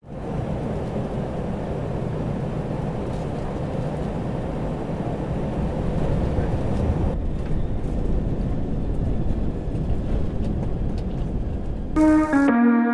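Steady cabin noise of an airliner in flight, heard from inside the cabin. In the last second, keyboard music comes in over it.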